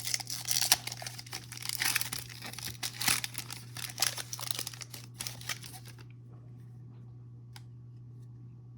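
Foil trading-card pack wrapper being torn open and crinkled, a dense crackling for about six seconds, then quiet apart from a faint tick or two over a low steady hum.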